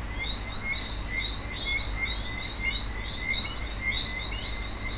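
Nature ambience of small chirping animal calls, short rapid chirps repeating about two or three times a second over a steady high whine and a low hum.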